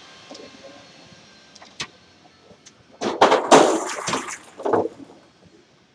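A shower of ping pong balls falling and bouncing on a hard floor: a dense clatter of sharp, light clicks that starts about three seconds in and thins out over about a second and a half. A single sharp click comes shortly before.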